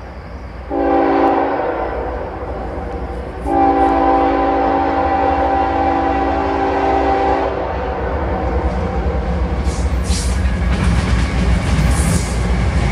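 Approaching CSX freight locomotive sounding its multi-chime air horn, a short blast followed about two seconds later by a long one of about four seconds. After the horn stops, the diesel rumble and wheel noise build as the train nears, and thin high wheel squeals come in near the end.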